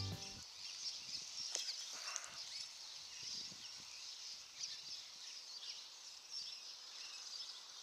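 Faint outdoor ambience with distant birds chirping. Background music cuts off in the first moment.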